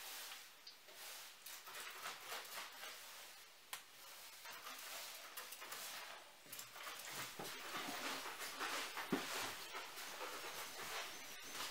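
Straw broom sweeping a wooden plank floor, repeated brushing strokes.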